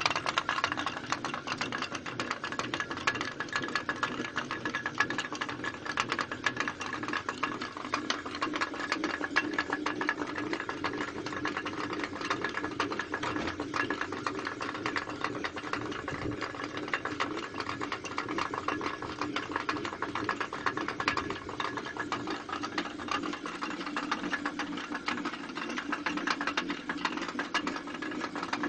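Traditional Ladakhi water-powered flour mill (ranthak) running, with a steady, rapid clatter of the turning millstone and its grain feeder.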